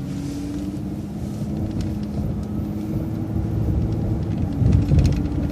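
Transit bus under way: a steady low engine and road rumble with a level drivetrain whine, swelling slightly near the end.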